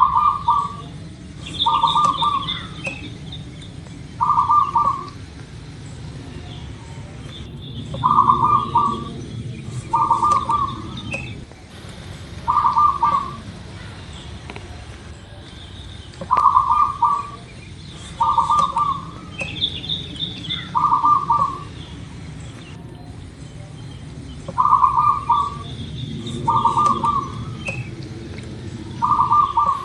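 Zebra dove (perkutut) singing its cooing song: four phrases, each of three short rolling coos, repeated about every eight seconds. Faint higher chirps sound in between.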